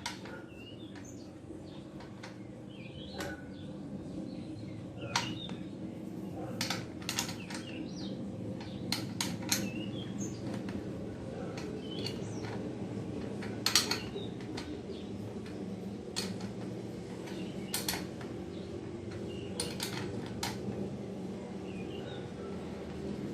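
Irregular metal clicks and clinks of a spanner tightening a bicycle wheel's axle nuts, over a steady low hum.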